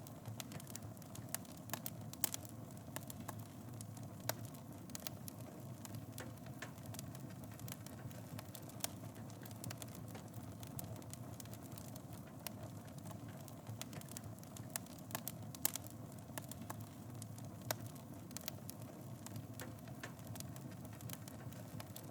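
Wood fire burning in a fireplace: a steady low rumble of flames with frequent, irregular crackles and sharp pops.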